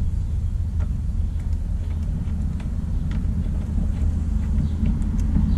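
A steady low rumble, with a few faint light clicks of a tool working the AC condenser's service valve.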